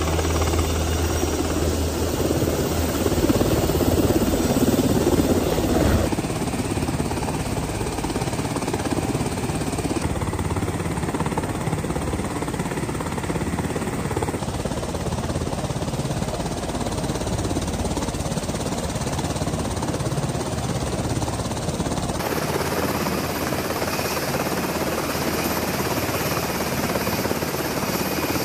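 UH-60 Black Hawk helicopter's rotor and twin turbine engines running continuously, with the sound changing abruptly several times.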